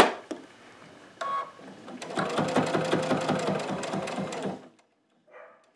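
Electric sewing machine stitching down a quilt's binding: a rapid, even run of stitches lasting about two and a half seconds, starting about two seconds in and stopping near the corner seam.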